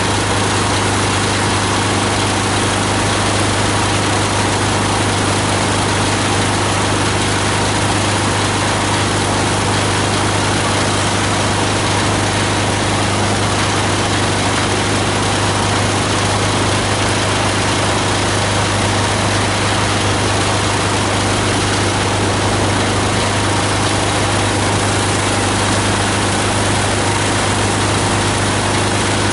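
Plastic grinder driven by an 18 HP diesel engine, running steadily: a constant low hum under a dense, even machine noise, with no change in speed or load.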